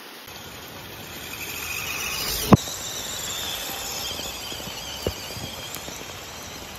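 Steady hiss of rain with insects chirping high and wavering. A sharp click about two and a half seconds in is the loudest sound, with a fainter one about five seconds in.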